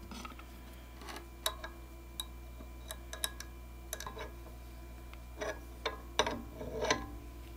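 Scattered light metal clicks and taps as a small router bit is handled and fitted into a CNC spindle's collet and the collet nut is worked by hand, with a closer run of clinks a little over five seconds in.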